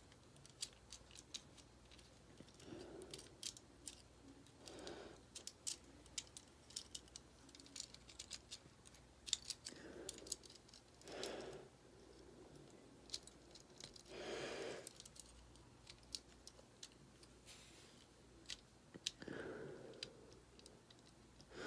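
Small steel parts inside a Ruger Mark IV Target pistol's grip frame clicking and scraping as the hammer, sear, trigger bar and spring are worked into place by hand. There are many light clicks throughout and a few short, soft rushing sounds between them.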